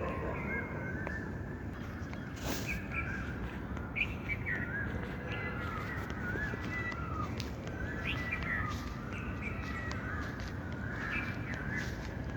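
A group of birds calling over one another: a continuous chorus of short, repeated chirps and calls, with a couple of sharp clicks.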